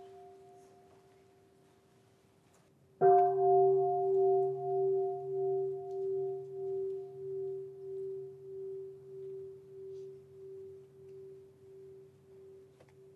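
A bowl bell struck once about three seconds in, after the tail of an earlier strike dies away. The ring wavers in loudness as it slowly fades over about ten seconds.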